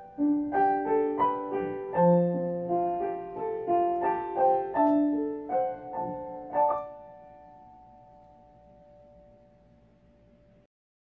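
Solo piano music: a slow melody of struck notes over chords, about two notes a second. It ends on a chord near seven seconds in that rings and fades, and the sound cuts off to silence shortly before the end.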